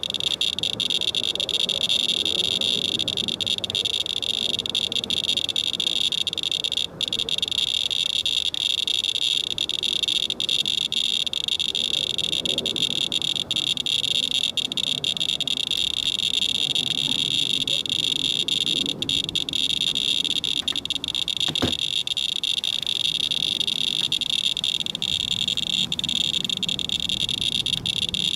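Radalert Inspector Geiger counter chirping on every count, so fast that the chirps run together into a steady, high-pitched buzz. The meter is reading about 1.32 to 1.33 mR/hr from a wipe sample of rainwater, roughly 133 times background.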